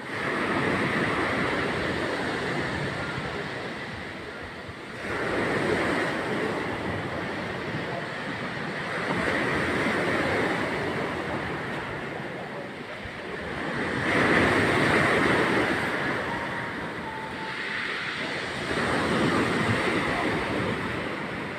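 Sea surf breaking on the shore, a steady wash of water that swells into a louder surge about every four to five seconds.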